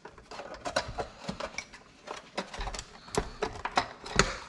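Plastic housing of a Shark steam cleaner being pulled and pried apart by hand: irregular clicks, creaks and knocks as the clips and seams give.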